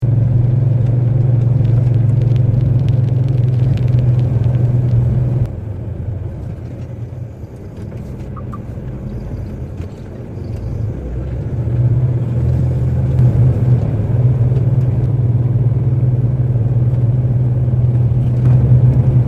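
Lorry driving: a steady low engine and road drone heard from the cab. It drops off suddenly about five seconds in, stays lower for several seconds, then builds back up and holds.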